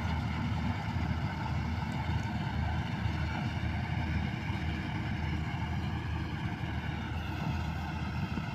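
Combine harvester engine running steadily under load while cutting the crop: an even, unbroken drone with a strong low rumble.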